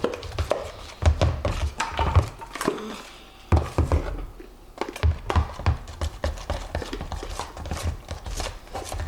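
Irregular clicks, knocks and dull thumps of plastic slime-kit containers, lids and a mixing bowl being handled and set down on a table.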